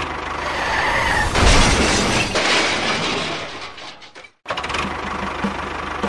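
A loud crash with shattering, hitting about a second and a half in and dying away over the next two seconds, as a toy train collides with a toy tractor. After a brief silence an engine starts up and runs with an even chugging pulse.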